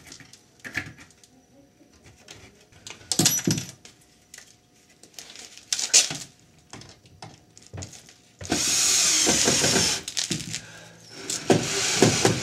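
Knocks and clatter of the window frame being handled in the wall opening, then a power drill running in two bursts near the end, about a second and a half and then about a second long, screwing the window frame in place.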